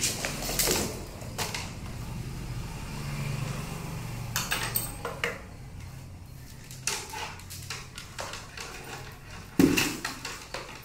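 Wiring materials being handled on a work board: scattered clicks and knocks, the loudest near the end, over a faint low hum.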